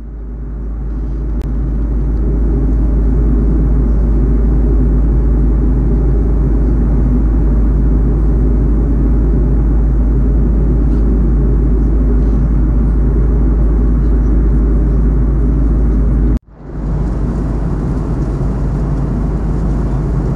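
Steady low rumble of an Airbus A330-200 airliner, engine and airflow noise as heard in the cabin. It swells up over the first few seconds, cuts off abruptly about sixteen seconds in, and resumes slightly quieter.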